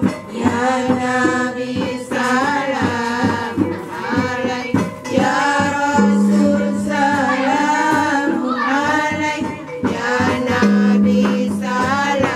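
Music: a sung melody over instrumental accompaniment, with long held low notes about halfway through and again near the end.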